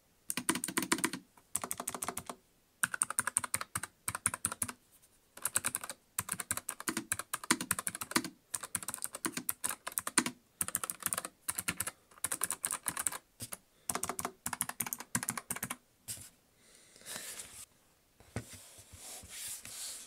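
Typing on a NuPhy Air75 low-profile mechanical keyboard with clicky Gateron blue switches: quick runs of sharp keystroke clicks with short pauses between them. The typing stops about four seconds before the end, and only softer, quieter sounds follow.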